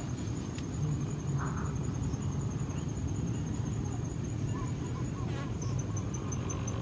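Birds calling over a steady low outdoor rumble: a short call about one and a half seconds in, and a quick run of four or five short notes near the end. A thin, fast, evenly pulsing high tone runs underneath.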